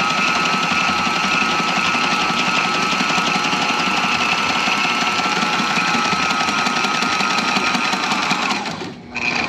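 Electric sewing machine running steadily, stitching through thick layers of tarp fabric with a rope in the edge pocket; it stops near the end.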